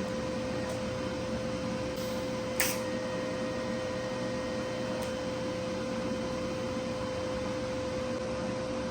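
WeldPro 200 TIG welder with the arc running on stainless steel, a steady buzzing hum over an even hiss. A short click comes about two and a half seconds in.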